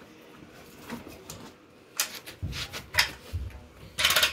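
Metal bar clamps and wooden table-leg blanks being handled: several sharp clicks and knocks from about halfway in, then a short, fast rattle near the end, the loudest sound.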